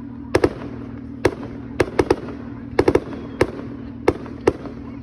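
Aerial fireworks going off: an irregular run of about a dozen sharp bangs in five seconds, several coming in quick pairs and triplets, over a steady low hum.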